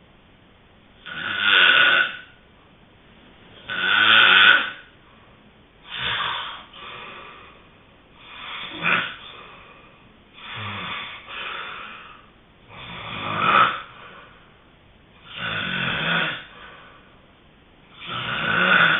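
A sleeping person snoring in a regular rhythm, one snore about every two and a half seconds.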